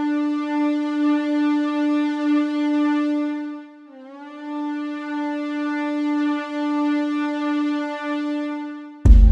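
Song intro: one long, steady electronic note, held about four seconds, then sounded again at the same pitch. Just before the end the full band comes in loudly with sharp hits.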